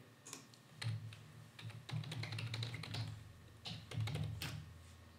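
Computer keyboard typing, the keys clicking faintly in short irregular runs.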